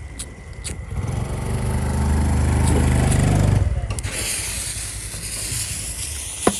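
A lighter clicks a few times, then a loud low rumble with a steady hum builds and cuts off suddenly about three and a half seconds in. A firework fuse then catches and hisses, and a ground fountain sprays sparks with a steady high hiss, with one sharp crack near the end.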